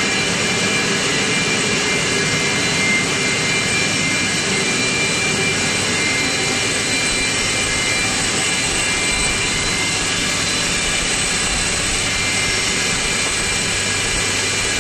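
DENAIR DAC-300 centrifugal air compressor running loaded: a steady, loud machine noise with several high, steady whining tones over it.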